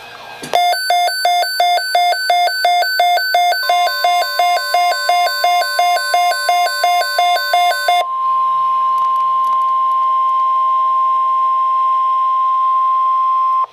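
Electronic alert beeping from a weather radio receiver, a fast pattern of about three beeps a second, followed about 8 seconds in by the steady NOAA Weather Radio 1050 Hz warning alarm tone, which cuts off abruptly: the signal that an alert message follows.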